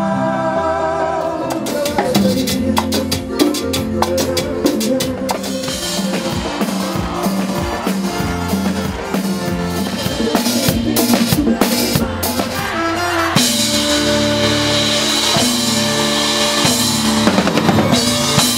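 A live pop band playing amplified music, with the drum kit to the fore: a busy run of rapid drum hits from about a second and a half in to about thirteen seconds, after which the full band comes back in on held chords.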